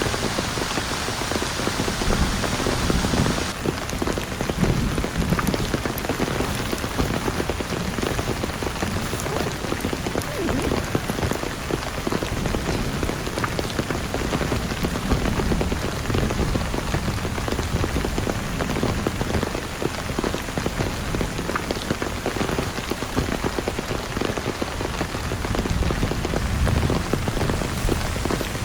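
Heavy rain falling steadily, dense with the ticks of individual drops striking a surface.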